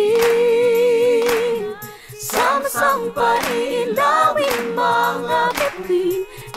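A group of voices singing a Tagalog Christmas song, opening on a long held note with vibrato.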